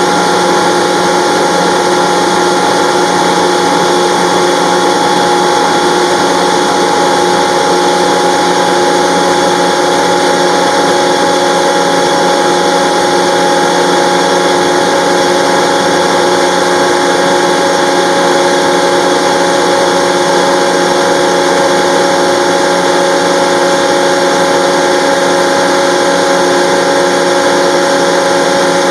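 50 HP Gardner Denver electric air compressor running steadily, a loud even machine noise with several constant tones through it.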